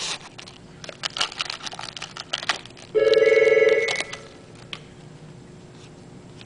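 A telephone ringing: one trilled ring about three seconds in, lasting about a second. Light clicks and rustling of trading cards being handled fill the gaps.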